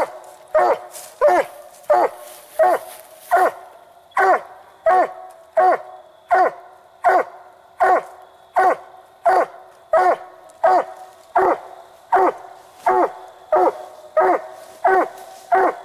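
Treeing Walker coonhound barking at a tree with a raccoon up it: a steady, rhythmic run of short barks, about one and a half a second, each dropping in pitch. This is a hound's tree bark, the sign that the raccoon is treed.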